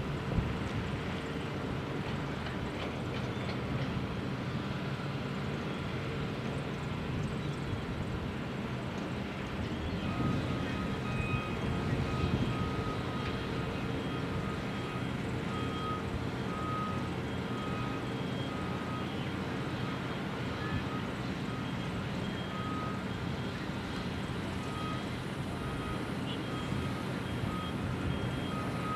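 Heavy construction machinery running steadily with a diesel drone. From about ten seconds in a backup alarm beeps at a regular pace.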